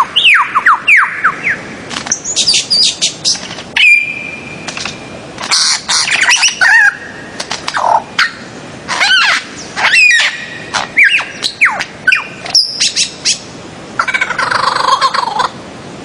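Paradisaea birds-of-paradise calling: a run of loud, sharp calls, many sliding down in pitch, with quicker chattering near the end.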